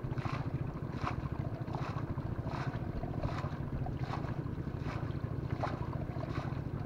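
Water being bailed by hand with a steel bowl: a scoop-and-pour splash about every 0.8 seconds, in a steady rhythm, over a constant low rumble.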